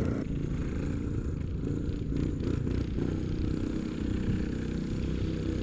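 Coleman CT200U minibike's small single-cylinder engine running at a steady speed, with a few light clatters about two to three seconds in.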